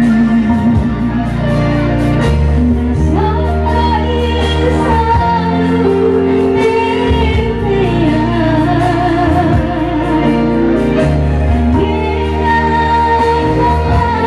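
A woman singing a song through a handheld microphone, with long held notes and vibrato, accompanied by a Yamaha electronic keyboard playing sustained chords that change every couple of seconds.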